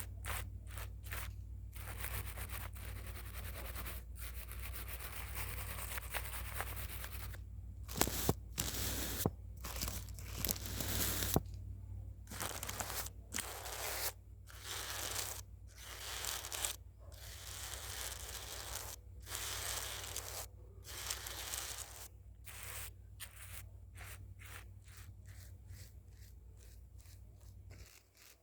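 Scratchy sketching strokes across a surface, one after another. They come thick and loud for a few seconds in the middle, then turn shorter with small gaps between them toward the end, over a low steady hum.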